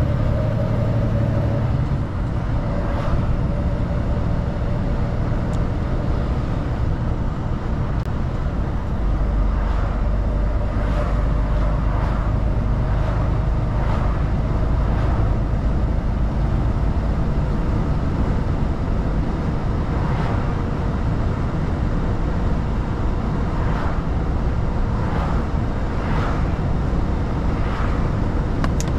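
Mercedes-Benz Actros truck driving along at a steady pace: a continuous low engine drone mixed with road noise, with short clicks or knocks now and then.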